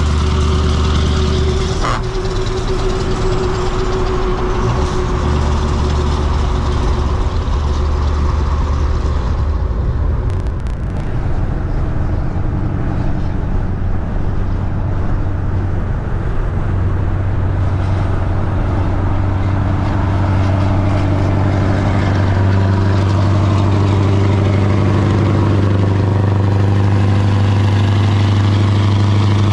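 Scania V8 diesel truck engines running, a steady deep drone. The sound shifts about 2 and 10 seconds in, thins out for a while, and the low drone grows stronger and fuller from about 22 seconds in.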